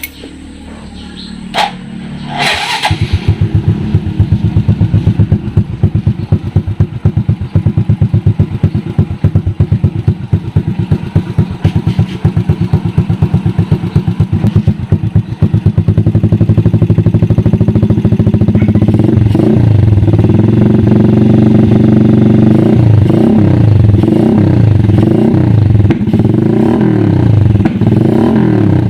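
Small single-cylinder motorcycle with a Vmax 51mm open-pipe exhaust canister, loud and sharply pulsing. It fires up about two and a half seconds in and idles. From about two-thirds of the way through it is revved in a series of quick blips, the pitch rising and falling each time.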